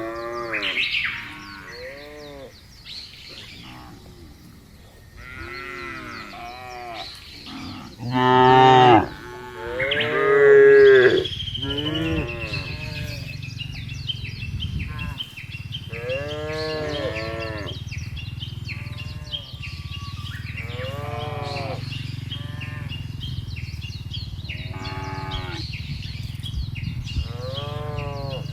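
Cattle mooing over and over, the calls rising and falling in pitch and sometimes overlapping, the loudest about eight and ten seconds in. A steady low hum joins about eleven seconds in.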